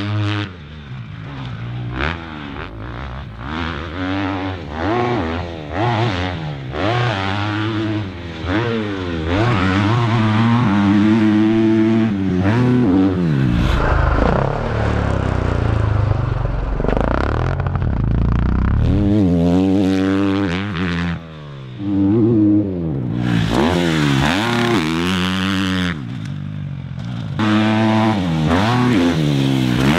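Motocross bike engine revving hard around the track, its pitch climbing and dropping again and again as the rider accelerates, shifts and backs off for corners and jumps.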